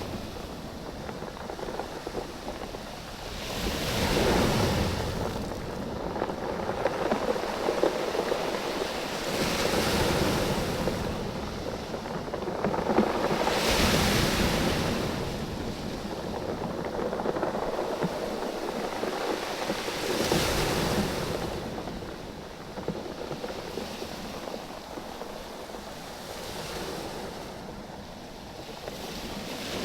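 Waves surging in and draining back over a beach of rounded oval stones, which clatter and knock against each other as the water moves them. The surges swell and fade about every five or six seconds.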